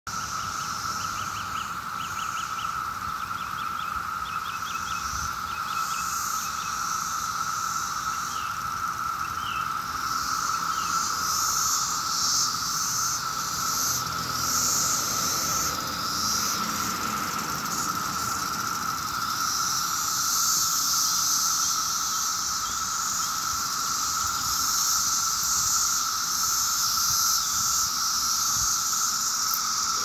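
Mass chorus of Brood X 17-year periodical cicadas: a loud, steady, unbroken drone from many insects at once.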